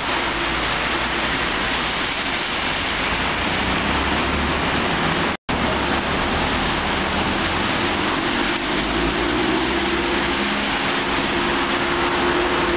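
Steady, loud rush of typhoon wind and heavy rain, cut off for an instant about five seconds in; a faint vehicle engine hum comes up toward the end.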